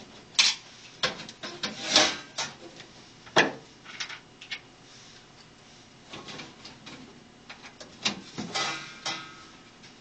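Hands working on a metal monitor chassis with a screwdriver while fastening the LCD panel in place: irregular clicks, knocks and short scrapes, with sharper knocks about half a second, two seconds, three and a half seconds and eight seconds in.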